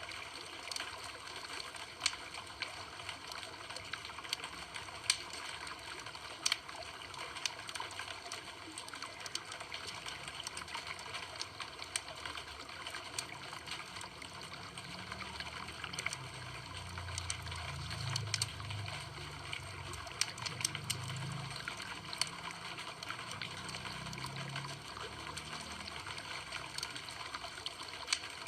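Campfire crackling: a steady hiss of burning wood with many small snaps and a few louder pops, and a low rumble of flame through the middle stretch.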